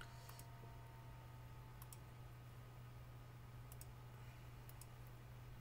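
Faint computer mouse clicks, some in quick pairs, made while placing wire segments in a circuit-drawing program, over a low steady hum.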